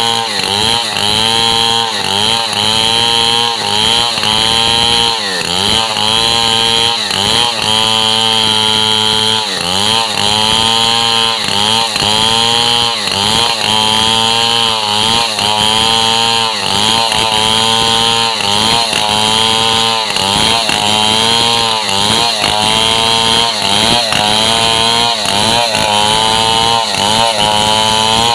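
Stihl MS 070 two-stroke chainsaw at full throttle, ripping lengthwise along a squared gmelina timber. The engine note dips under load and recovers about once a second as the chain bites and frees.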